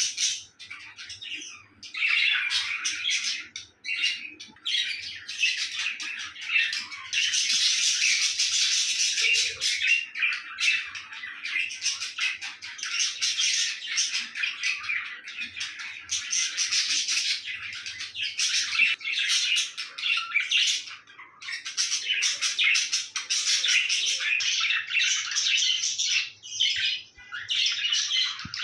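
Budgerigars chattering and warbling in a near-continuous stream of high, scratchy chirps and squawks, broken by a few short pauses.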